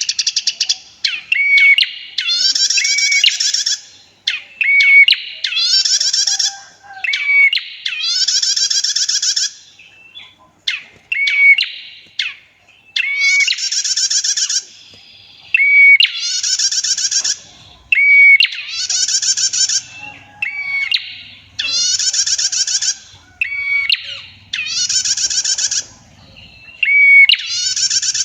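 Prinia (prenjak), sold as a female, repeating its long buzzy trilling call. Each phrase opens with a short clear note and runs about a second, and the phrases come about every two seconds.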